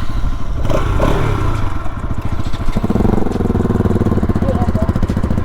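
Motorcycle engine running at idle with its exhaust note pulsing evenly, the revs shifting up about three seconds in.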